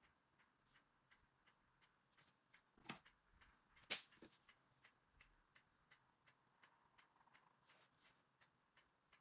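Faint, fast, regular ticking, about three ticks a second, like a clock, with a couple of louder clicks and a sharp knock about three and four seconds in.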